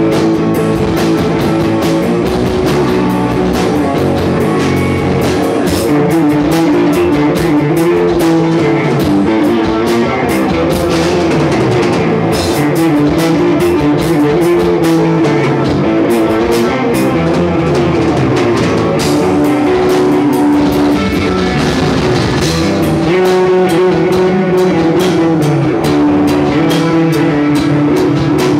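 Loud rock music with guitar and a drum kit, played continuously with frequent drum hits.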